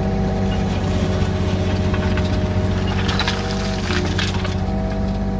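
Yanmar B37 mini excavator's diesel engine running steadily while working, with gravel scraping and rattling against the bucket about three to four seconds in.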